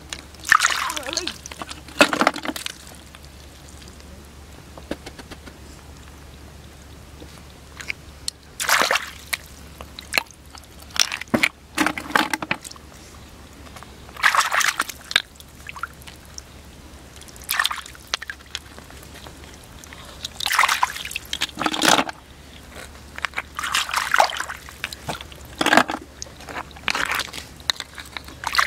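Shallow water sloshing and splashing in irregular short bursts, stirred by hands groping through mud and water for snails and crabs.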